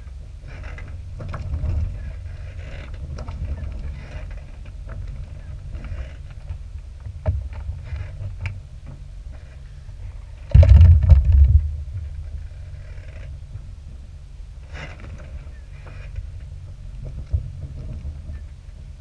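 Wind buffeting the microphone on the open deck of a sailing trimaran, a steady low rumble with a hard gust about ten and a half seconds in that lasts a second or so.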